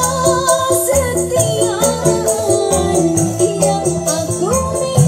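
Dangdut koplo music played loud through a DAT DT 860VT portable speaker: a steady drum beat under quick, even high percussion taps, with a gliding melody line over it.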